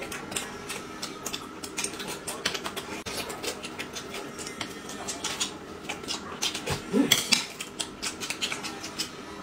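Close-miked eating sounds: dumplings being chewed with wet mouth clicks and smacks, and chopsticks clicking against a plate. A short hummed vocal sound comes about seven seconds in.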